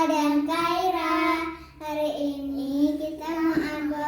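A child singing a melody with long held notes, in two phrases with a short break just under two seconds in.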